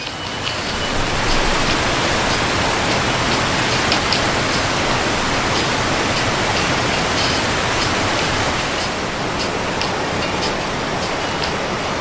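Whitewater rushing down a cascade over granite ledges: a loud, steady wash of falling water that swells up in the first second.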